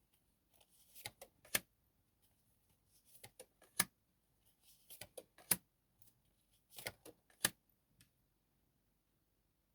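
Light clicks and taps, mostly in pairs about half a second apart, four times over several seconds: tarot cards being handled and laid down on a table.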